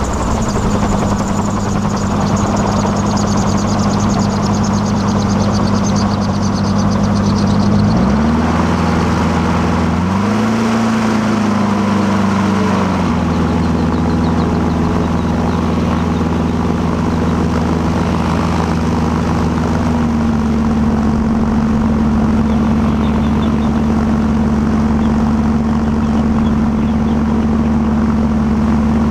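Gyrocopter engine and pusher propeller running steadily while taxiing on grass. The engine speed rises and falls between about eight and thirteen seconds in, then settles to an even note.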